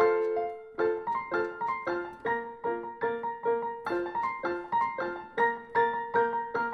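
Background piano music: a steady run of single struck notes, about three a second, with one longer held note near the start.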